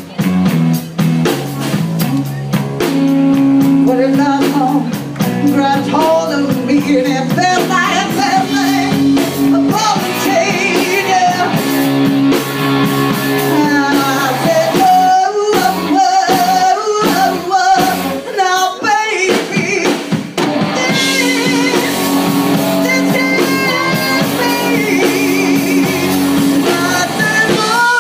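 Live rock band playing a slow blues-rock song: a woman sings long, wavering notes over electric guitars and a drum kit, with a run of heavy drum hits about halfway through.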